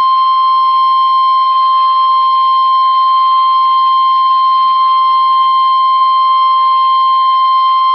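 NOAA Weather Radio 1050 Hz warning alarm tone: a single steady, loud, high-pitched tone that cuts off sharply near the end. It signals that a warning message follows.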